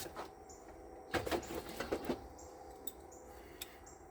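A few short knocks and scrapes, a bit over a second and about two seconds in, from hands and tools working around the tractor's battery and cables.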